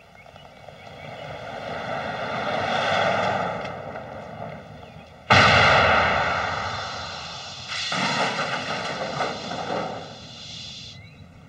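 Road traffic passing: one vehicle swells in and fades over the first few seconds, then a louder rush starts suddenly about five seconds in, and another follows about three seconds later.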